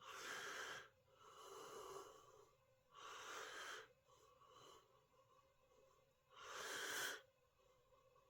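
A person breathing quietly close to the microphone: four soft breaths, each under a second long, with a longer pause before the last.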